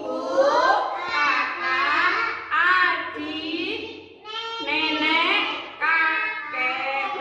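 A woman and a group of young children singing a song together, with a short break about four seconds in.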